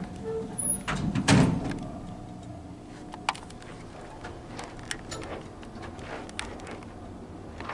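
Lift doors sliding shut with a thud about a second and a half in, just after a short beep. Then the car starts travelling down, with a steady low hum and a few light clicks.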